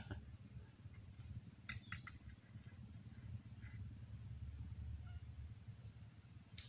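Quiet outdoor ambience: a low, uneven rumble with a steady high-pitched whine over it, a couple of faint clicks about two seconds in, and a few faint distant bird calls.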